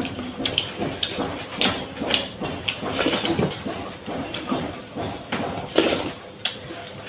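Close-miked eating sounds: chewing and lip-smacking as rice and curries are eaten by hand, a string of short, irregular wet clicks and smacks.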